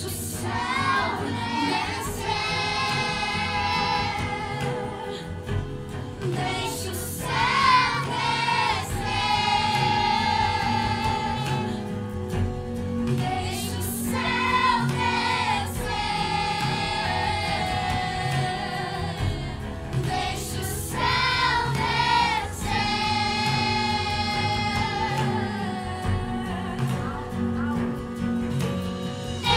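Children's choir singing a praise song over an instrumental backing, in long held phrases with short breaks between lines.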